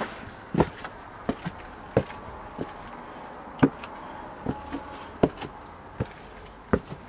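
Footsteps climbing stone steps: sharp, irregular footfalls, roughly one or two a second.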